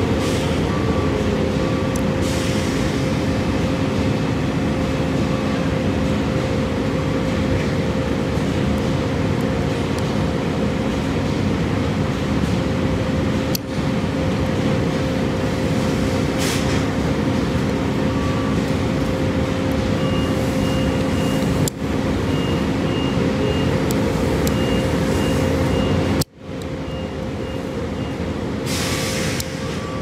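Loud, steady machinery drone with a constant hum, with runs of short, evenly spaced high beeps now and then, like a vehicle's backup alarm. A couple of sharp clicks sound about 14 and 22 seconds in.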